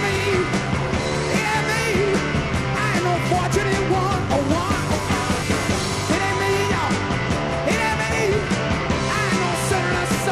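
Rock music with a singing voice, at a steady level.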